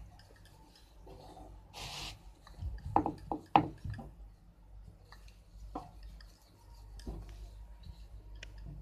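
Rolling pin working soft mathri dough rounds on an oiled board: faint squishing and rubbing, with a brief hiss about two seconds in and a few sharp knocks or squeaks about a second later.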